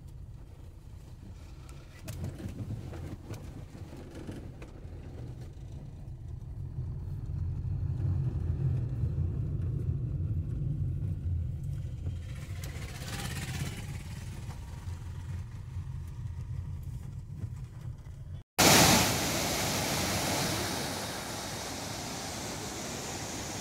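Low, steady road and engine rumble of a car driving on a winding road, heard from inside the car. About three-quarters of the way in it cuts sharply to the loud, even rush of water pouring over a wide, rocky waterfall.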